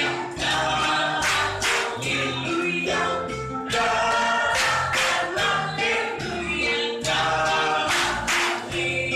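A lively Christian song with a group singing and a lead voice through a microphone, over an instrumental backing with a steady beat and bass line.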